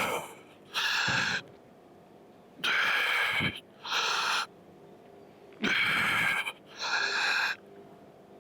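A man breathing hard from exertion, loud hissing breaths in and out, in three pairs, each breath about half a second long.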